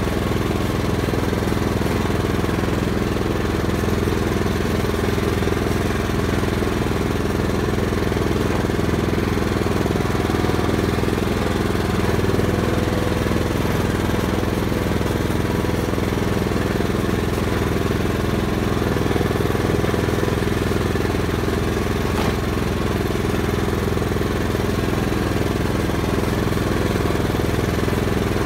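Riding lawn tractor's engine running at a steady speed while mowing.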